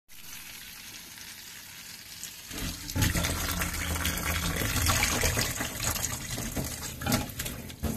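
Kitchen tap running into a stainless steel bowl of asparagus in a steel sink. About two and a half seconds in the water noise gets louder and fuller as a hand swishes the asparagus in the bowl under the stream.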